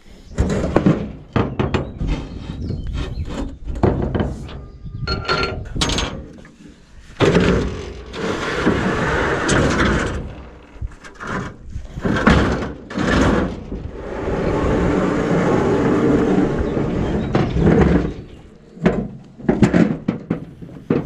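Aluminium trailer loading ramps being handled: a run of clanks and knocks, a brief metallic ring about five seconds in, and two longer stretches of scraping as the ramps slide against the steel trailer.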